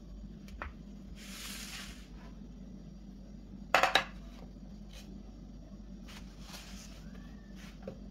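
Kitchenware handling: a soft rustle, then a short, loud clatter of a dish or utensil being set down or knocked about four seconds in, followed by a few light clicks.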